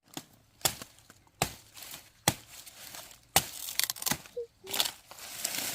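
Produce being packed into a sack: sharp knocks about once a second as pieces go in, with rustling and crinkling that builds near the end.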